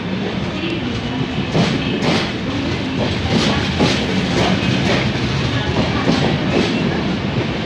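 Indian Railways passenger coaches rolling past as the train pulls out: a steady rumble, with wheels clacking over rail joints in pairs of clicks about half a second apart, again and again.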